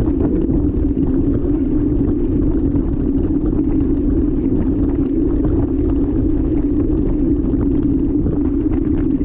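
Steady rumble of wind and rough dirt-track riding picked up by an action camera travelling on a mountain bike, with scattered small rattles from bumps.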